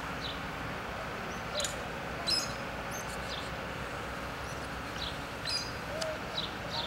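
Black-capped chickadees calling: a scatter of short, high chirps and sharp chip notes, the sharpest about one and a half, two and a half and five and a half seconds in, over steady background noise.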